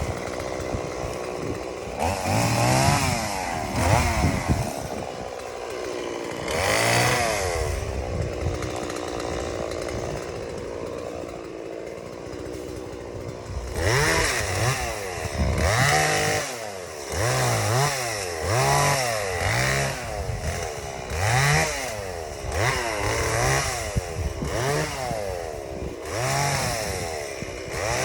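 Stihl MS 170 two-stroke chainsaw revving up and dropping back toward idle, again and again, while clearing the area. A couple of revs, a lower steady stretch in the middle, then quick repeated revs about once a second.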